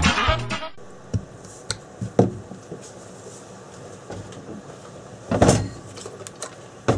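Music cuts off, then the plastic case of a repacked cordless-drill battery pack is handled on the bench: a few light clicks and knocks, and a louder, brief scuffing knock about five and a half seconds in.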